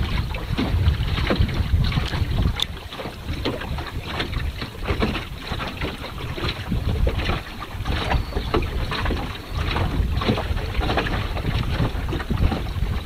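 Wind rumbling on the microphone, with water splashing and slapping irregularly against the hull of a small open sailing boat under way.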